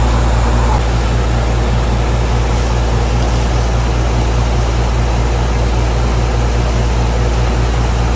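Borewell-cleaning air compressor running steadily, a low even drone, with the hiss and splash of compressed air blowing water up out of the borewell.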